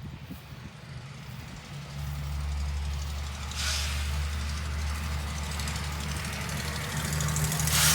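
A vehicle's engine running with road noise, a steady low hum that grows louder about two seconds in as it gets under way.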